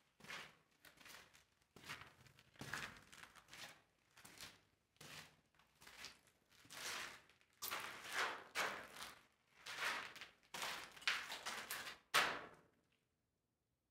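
Footsteps crunching and scuffing on a sand- and grit-covered concrete floor: a dozen or so uneven steps, the last one near the end the loudest.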